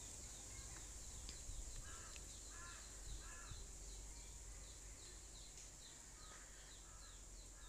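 Faint rural background: a steady high insect drone with short repeated chirps, and distant crows cawing in a few short bursts.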